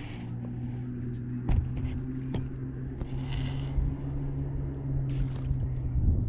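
An engine running steadily at an even pitch, stopping near the end, with two light knocks early in the run.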